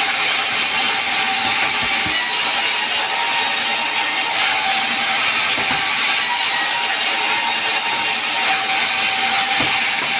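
Sawmill saw running, a steady, loud, high-pitched mechanical noise with a faint steady whine through it and a few soft knocks.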